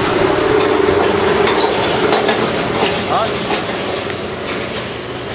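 A large vehicle running and slowly fading as it moves off.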